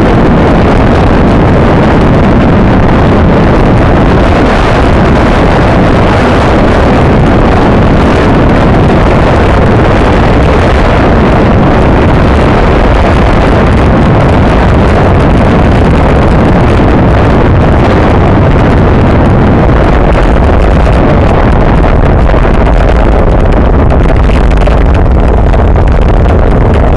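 Loud, steady wind buffeting on the microphone of a camera mounted on a road bike at racing speed, with the low rumble heavier in the last several seconds.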